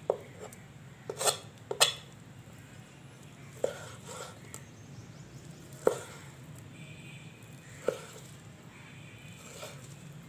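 Kitchen knife cutting raw boneless chicken breast on a wooden cutting board: a short knock each time the blade comes down through the meat onto the wood, about six in all, spaced a second or two apart, with two sharper, brighter ones about a second in.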